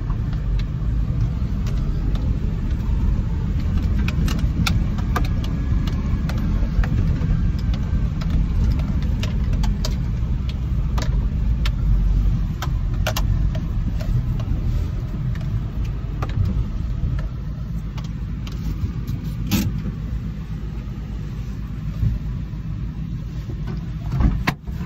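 Car heard from inside its cabin: a steady low rumble with scattered small clicks and knocks, and a sharper click near the end.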